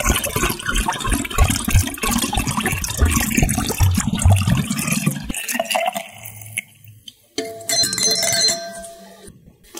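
Water poured from a glass bottle through a metal funnel into another glass bottle, splashing with low gurgles for about five seconds before the stream stops. Near the end comes a short glass clink that rings briefly.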